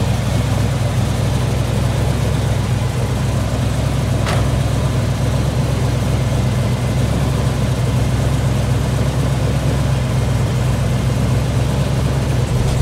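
Twin-turbocharged engine of a 1971 Chevrolet Impala convertible idling steadily, with a deep, even low end. A short sharp sound cuts in about four seconds in.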